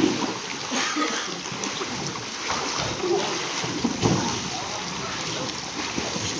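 Water splashing and sloshing as swimmers in life jackets kick and paddle across a pool, with voices calling out now and then.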